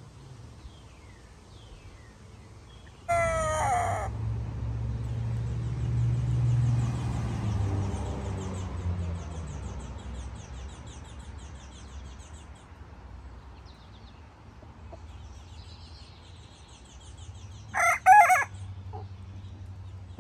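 Silkie chickens calling, two short calls: one about three seconds in, and a louder two-part one near the end. A low rumble starts with the first call and fades away over several seconds.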